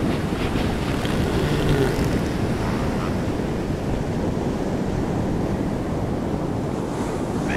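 Steady surf and wind rumble, with wind buffeting the microphone.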